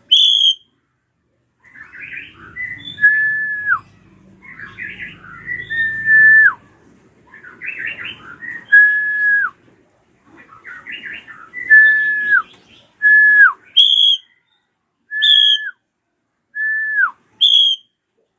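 Drongo (srigunting krantil) calling: repeated phrases of quick chattering notes, each ending in a clear held whistle that drops sharply in pitch at its end, coming every two to three seconds. Near the end the chatter gives way to short high notes alternating with the falling whistles.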